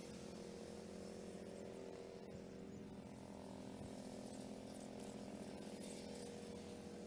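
Faint, steady running of a small petrol engine, a ride-on lawn mower, with its pitch shifting slightly a few seconds in.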